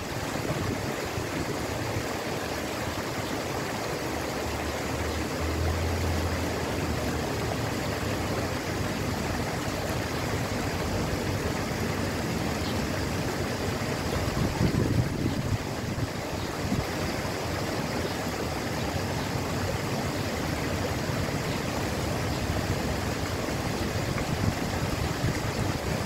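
Water cascading and splashing down an ornamental rock waterfall, a steady rushing with no pauses.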